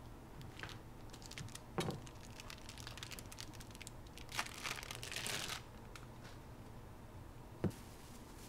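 Crinkling and rustling handling noise with scattered small clicks, a longer louder rustle about halfway through, and two sharp knocks, one early and one near the end.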